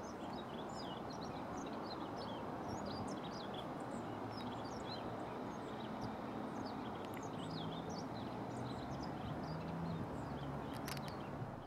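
Small birds giving many short, high chirps and calls, scattered and overlapping, over a steady low outdoor rumble. A single sharp click sounds a little before the end.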